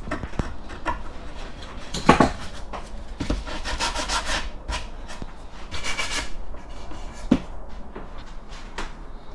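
A hand tool scraping and rubbing along a wooden frame in irregular strokes, as the wood is shaped and smoothed by hand, with a sharper knock about two seconds in and another later on.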